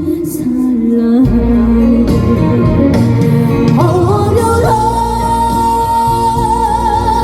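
A woman sings a trot song live over an amplified backing band. Near the end she holds one long high note with vibrato.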